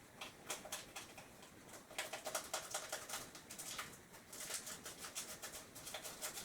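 Rapid scratchy rustling in two runs of about two seconds each: a yeast packet being handled and shaken out.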